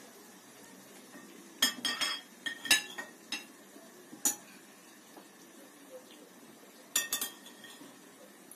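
Dishes and cutlery clinking: sharp clinks with a brief ring, a burst of several in the first half, a single one a little after that, and another quick cluster later.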